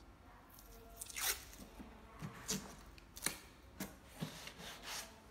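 A strip of paper label tape being handled and pressed onto a hard plastic tool case: about half a dozen short crackles and taps.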